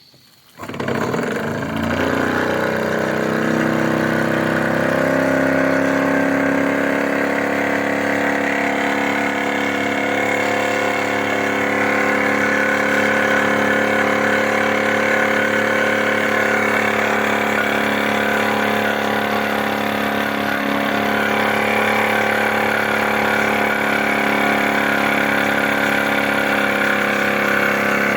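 Large machinery starting abruptly and spinning up over about two seconds, then running as a loud, steady drone with many steady tones.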